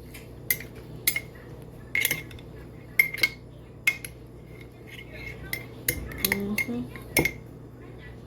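A spoon stirring tea, clinking sharply against the side of the container about a dozen times at an uneven pace.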